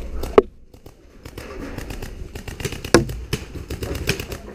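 Camera and gear scraping and rubbing against the planks of a wooden bunker wall, broken by irregular sharp clicks and knocks, the loudest about half a second in and again about three seconds in.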